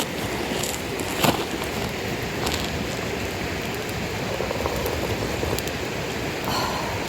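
Wood campfire of damp firewood burning: a steady hiss with a couple of sharp crackles, one about a second in and another about two and a half seconds in.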